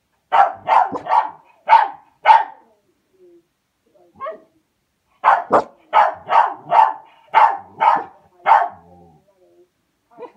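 A dog barking in two runs of quick, loud barks, the second run longer than the first.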